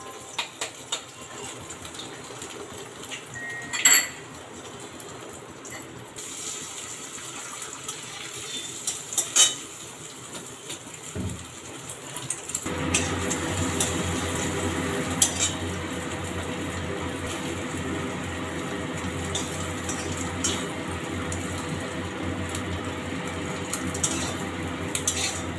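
A metal spatula clinking and scraping against an iron kadai as an egg omelette fries in oil and is folded over. From about halfway the frying sizzle turns into a louder, steady hiss, with occasional clinks of the spatula on top.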